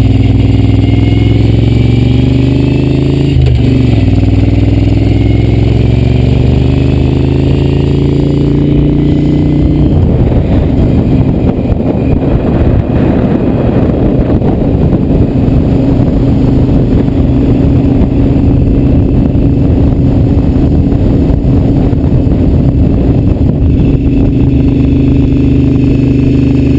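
Moto Guzzi motorcycle engine pulling up through the gears, its pitch climbing repeatedly with a shift about three and a half seconds in. After about ten seconds it settles to a steady cruise, half buried under wind rushing over the microphone.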